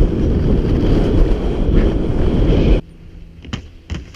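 Wind rushing over a skier's camera microphone while skiing downhill, a loud, dense rumble that cuts off abruptly about three seconds in. After that it is much quieter, with a few faint knocks.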